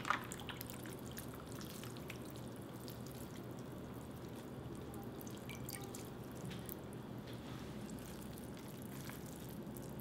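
Water dripping back into an ice-water bowl from a handful of freshly rinsed naengmyeon noodles as they are lifted out and drained, in faint scattered drops.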